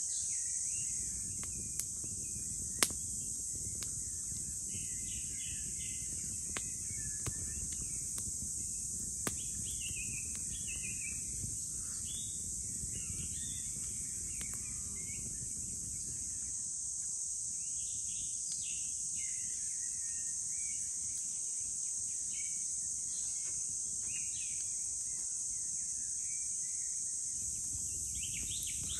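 Forest ambience: a steady high drone of insects with birds chirping, and scattered sharp crackles and pops from a wood campfire, the loudest pop about three seconds in.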